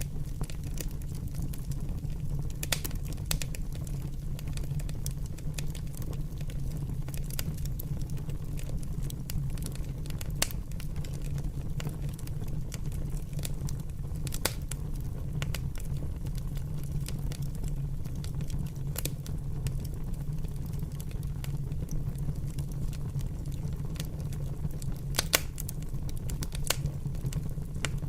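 Fire crackling: scattered sharp pops and snaps over a steady low rumble, with a few louder pops spread through.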